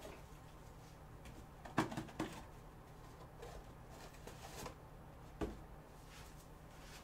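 Quiet room sound: a low steady hum with a few scattered dull knocks, the loudest a pair about two seconds in and another about five and a half seconds in.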